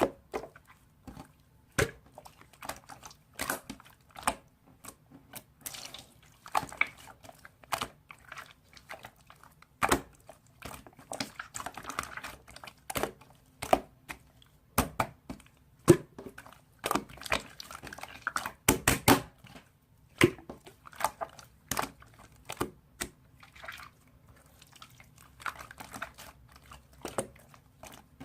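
Slime being squished and pressed by hand, giving many sharp wet clicks and pops at irregular intervals, with soft crackling in between.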